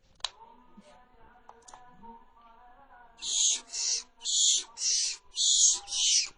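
Barn owl giving a rapid run of harsh, hissing screeches, about two a second, starting about three seconds in after a quiet stretch.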